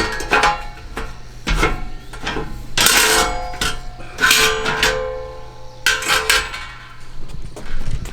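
Metal objects clanking: a series of knocks, the loudest three about a second or more apart, each leaving a short ringing tone that fades away.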